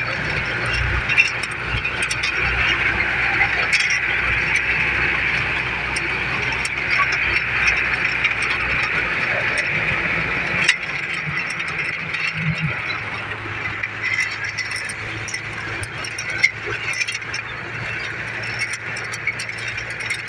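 Steady rushing noise of riding along a road in a strong wind: wind on the microphone over a moving vehicle's running noise, with a few sharp rattling knocks.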